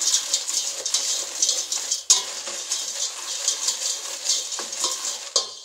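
Dry soup pasta frying in oil in a metal pot, stirred with a spoon: a steady crackling sizzle with the scrape and rattle of the pasta against the pot. The pasta is being toasted until golden.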